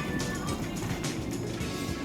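Background music with a steady beat, over the low rumble of a car driving on the road.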